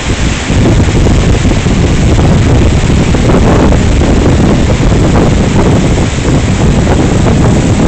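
Wind buffeting a phone's microphone on the deck of a moving ship: a loud, steady, gusting rush heaviest in the low end, with the churn of the ship's wake mixed in.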